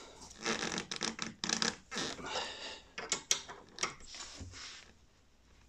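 Hand tools and metal parts handled at a motorcycle's front brake caliper: irregular clicks and scrapes, with a few sharp metallic clicks, dying away about four and a half seconds in.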